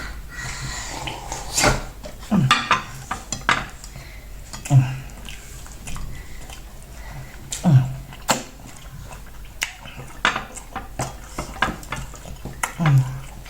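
Eating a meal of fufu and light soup close to the microphone: scattered clinks of dishes and cutlery, with four short low sounds spaced a few seconds apart.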